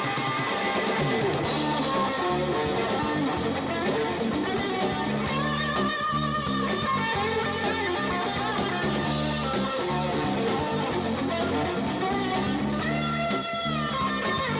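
Guitar music: plucked and strummed guitar over low bass notes, at a steady level.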